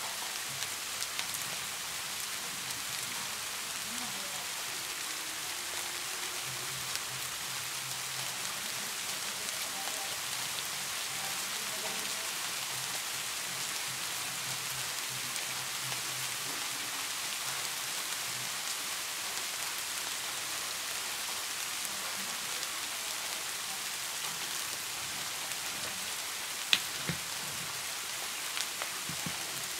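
A steady, even hiss like rain falling, with a single sharp click near the end.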